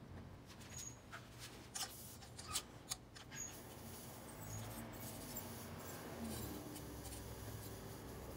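Faint clicks and light scraping of a hand tool against a motorcycle's steel muffler, a handful of sharp ticks in the first few seconds, then a faint low hum.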